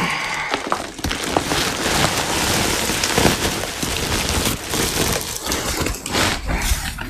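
Loose, chopped, fibrous plant material being scooped and tossed by hand, a continuous dense rustling and crackling with scattered sharp crackles. It opens with a brief pitched sound.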